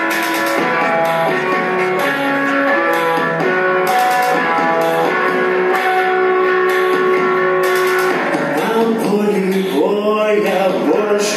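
Live indie-electronic band playing: electric guitars picking a melody over held keyboard tones. A singing voice comes in on the microphone about nine seconds in.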